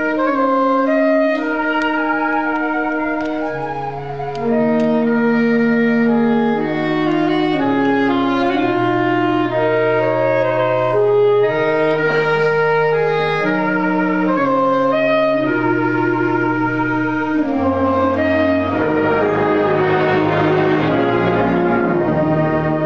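Concert band playing a slow piece in held chords that move note by note, with clarinets and flute to the fore. The sound grows fuller and busier near the end.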